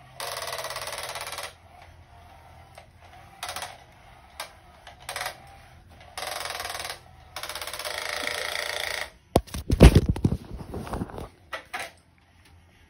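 Rustling bursts of a second or so as a cat scrabbles at a fabric play mat. Then a phone is dropped and handled: a cluster of sharp knocks and deep thumps, the loudest sounds.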